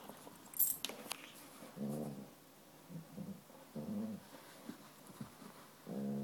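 Golden retriever giving three short, low grunts about two seconds apart as it rolls on its back, with a couple of faint sharp clicks about a second in.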